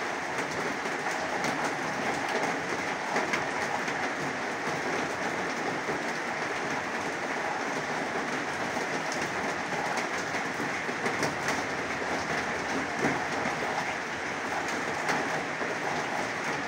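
Heavy rain falling steadily on a zinc (corrugated metal) roof: a dense, even hiss full of fast, close drop ticks, with no let-up.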